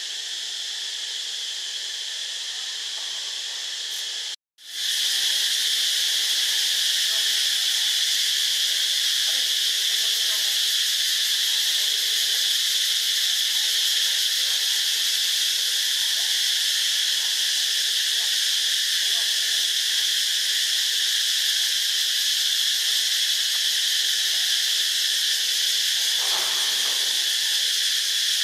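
Steady high-pitched chorus of insects, broken by a brief silence about four seconds in, after which it comes back louder.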